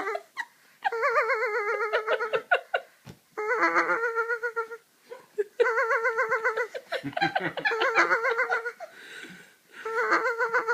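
A young child making a series of long held "aah" sounds while his belly is pushed in quick rhythm, the pushing making his voice wobble up and down, with short breaks between the calls.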